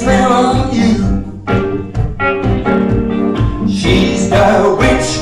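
Live band playing a song with electric guitar and piano, with singing over it.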